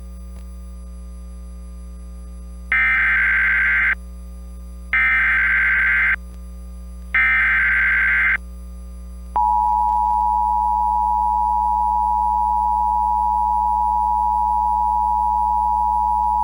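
Emergency Alert System broadcast opening: three screeching digital SAME header bursts, each about a second long and a second apart, then the steady two-tone EAS attention signal starting about nine seconds in. A steady low mains hum runs underneath.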